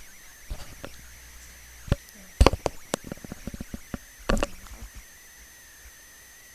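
Irregular clicks and knocks: one cluster of quick ticks about two and a half seconds in and a single knock past four seconds, over a faint steady high-pitched whine.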